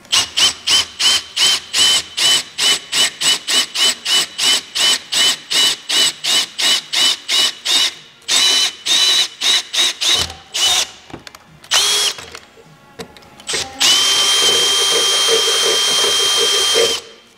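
A cordless drill with a 5/16-inch bit enlarging a mounting hole in a tractor's cab roof. The trigger is pulsed in short whining bursts, about four a second, for the first ten seconds. After one brief burst, the drill runs steadily for about three seconds near the end.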